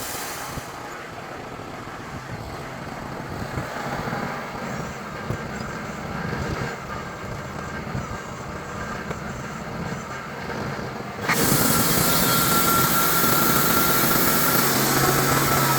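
Portable band sawmill's gasoline engine running steadily, muffled at first; about eleven seconds in it abruptly becomes louder and brighter, with a steady high tone.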